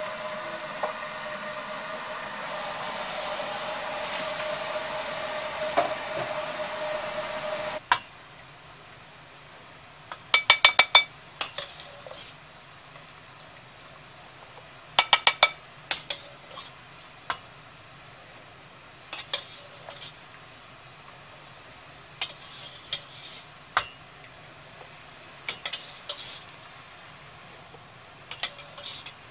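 A steady hum with a held tone that cuts off abruptly about eight seconds in. Then a metal utensil clinks and knocks against a stainless steel pot, in short clusters of ringing strikes every few seconds, the loudest two near the middle.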